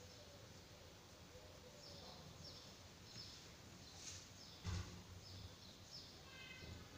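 Faint chirping of small birds, short falling notes coming every half second or so, over quiet room tone. A single soft knock about two-thirds of the way through is the loudest sound.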